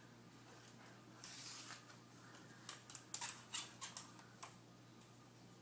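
Retractable steel tape measure being handled: a short swish of the blade about a second in, then a quick run of about eight sharp clicks and rattles from the blade and case.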